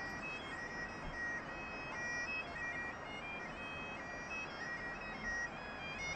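Highland bagpipes playing a tune, the melody moving in short held notes from one pitch to the next.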